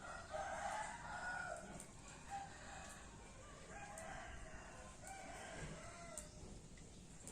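Roosters crowing, one long crow near the start and then several more crows one after another, fairly faint.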